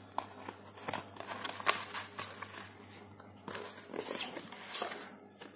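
Cardboard and paper being handled: the slide-out accessory box and its folded card insert rustling, scraping and tapping under the fingers, in irregular clicks and rustles.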